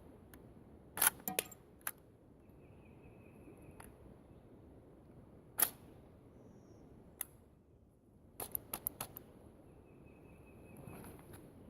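Sharp metallic clicks and clacks of an AR-pattern rifle's action being handled, a cluster about a second in, single clicks in the middle and a quick run of four or five near the end, while the rifle fails to cycle cast-bullet .223 Remington handloads.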